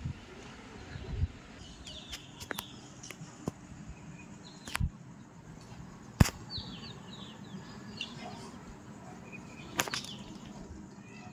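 Quiet outdoor ambience with several sharp clicks, the loudest about six seconds in. There are a few short high bird chirps between them.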